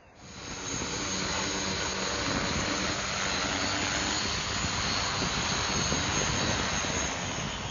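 Rotors and brushless motors of a JMRRC X1000 agricultural sprayer multirotor drone running steadily as it hovers low and descends to land. The noise is loud and even, with a faint high whine over it.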